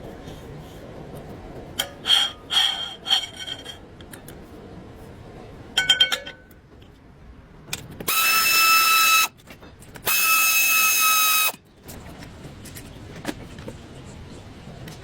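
A handheld power tool runs in two bursts of about a second and a half each, with a steady whine. A few ringing metallic clinks come before it.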